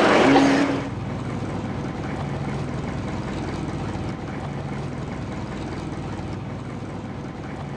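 A boat's engine running steadily, a low even hum under a wash of noise. A louder pitched sound stops just under a second in.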